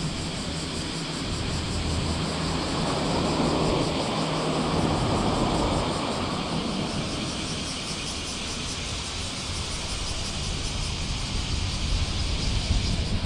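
Car driving along a road, heard from inside the vehicle: a steady low engine hum under tyre and road noise, swelling a little about three to six seconds in.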